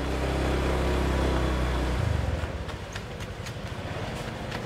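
A motor vehicle engine running, a steady low hum for about two seconds that then turns rougher and a little quieter, with a few light clicks in the second half.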